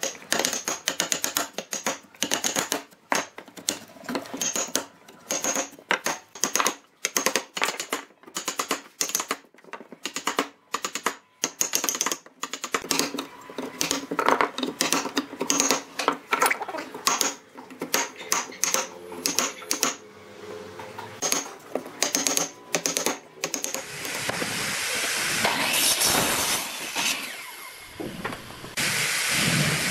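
Rapid, irregular knocks and taps of woodworking tools striking wood. About three-quarters of the way through, a steady rushing noise takes over and runs on with one brief dip.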